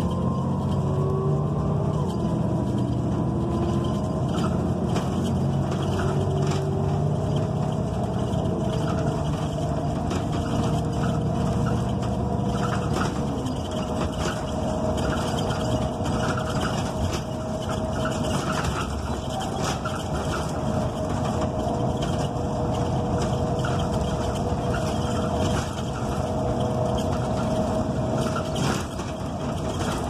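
Inside a NABI 45C-LFW transit bus under way: its Cummins Westport ISL G natural-gas engine and Allison B400R transmission run with a low hum and a whine that shifts in pitch during the first few seconds, then holds steady. Light rattles from the body and fittings come through throughout.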